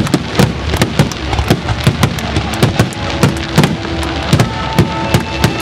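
Fireworks finale: aerial shells bursting in quick, irregular succession, two or three sharp booms a second over a continuous crackling rumble.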